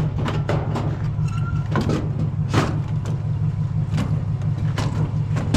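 A vehicle engine running steadily with a low hum, with several short sharp knocks scattered through it.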